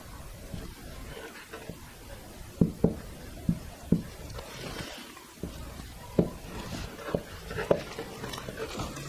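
Dry-erase marker writing figures on a whiteboard: a faint scratch of the felt tip with irregular short taps of the marker against the board.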